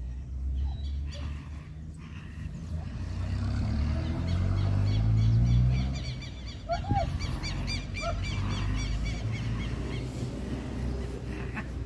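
German Shepherd growling in a deep rumble that builds to its loudest about five seconds in as it pulls during protection bite work, then two short high yips. Fast repeated chirping of birds runs behind it.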